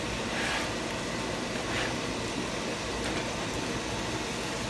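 Thick curry sauce of watermelon rind bubbling in a saucepan on a very hot electric stove: a steady hiss, with a spatula scraping through it a couple of times.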